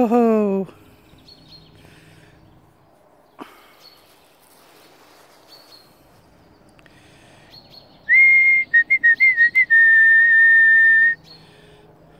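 A loud whistle to call the dogs, starting about eight seconds in and lasting about three seconds: a steady high note, a run of short broken chirps, then a long steady note a little lower.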